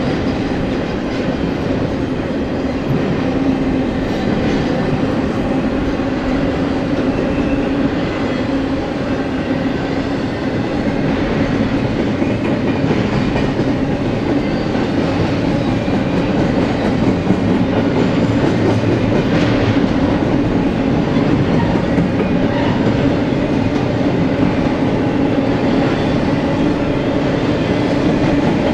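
Double-stack intermodal freight train rolling past at close range: a steady rumble of steel wheels running on the rails as the well cars go by, getting a little louder in the second half.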